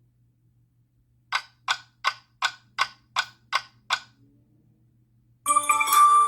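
Mobile phone notification tone: eight quick, clock-like ticks at about three a second. Near the end a louder tone with several ringing pitches begins, the next notification sound.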